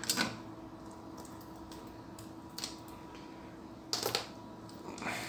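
A few light, sharp clicks and taps of small plastic connectors and wire leads being handled on a desk while RC electronics are wired up, with a quick cluster of clicks about four seconds in.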